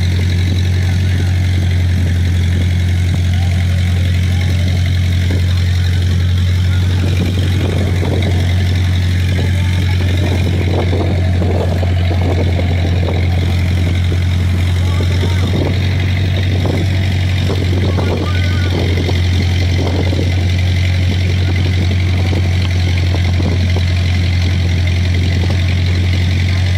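A fishing boat's engine running steadily at a constant low pitch, with no change in speed.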